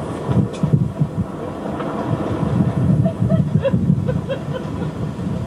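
Steady rumble and rattle of a vehicle riding over a rough track, with wind on the microphone.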